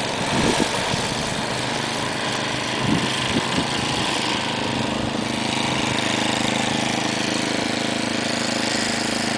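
Snowblower engine running steadily, a continuous drone that grows slightly stronger about halfway through.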